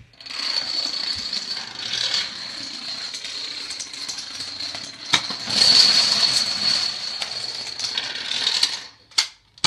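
A long chain of dominoes toppling, a continuous dense clatter of small tiles knocking into each other, with a sharp knock about five seconds in and louder stretches around six and eight seconds, breaking off briefly near the end.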